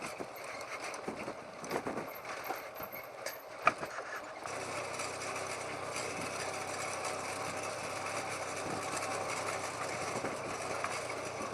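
Single-cylinder motorcycle engine of a TVS Apache RTR 180 running at low revs on a rough dirt descent, with a few knocks in the first few seconds. It settles into a steadier engine note with road and wind noise from about four seconds in.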